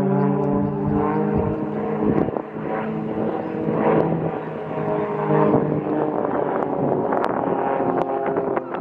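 Propeller engine of an aerobatic display plane, a steady droning note that shifts in pitch a couple of times. Some crackling in the last two seconds.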